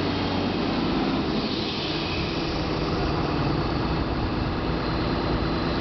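Cat 320 hydraulic excavator's diesel engine running steadily, its note shifting slightly about a second in.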